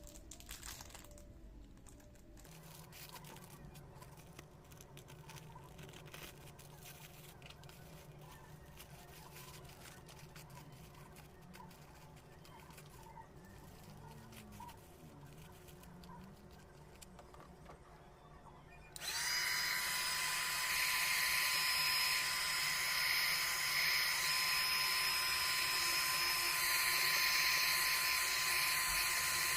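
Faint clicks over a low hum, then about two-thirds of the way through a hot air gun switches on: a sudden steady rush of hot air with a high motor whine that rises briefly as it spins up, then holds steady.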